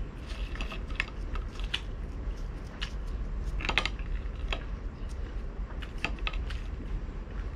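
Mouth-close crunching of crispy fried pork belly (pork pinakupsan) being chewed: irregular crisp crackles, thickest a little before the middle, over a steady low rumble.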